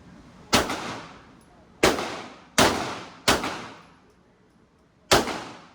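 Five gunshots from a firearm fired at a target, unevenly spaced, the fourth shot after a longer pause, each sharp crack followed by a short ringing tail.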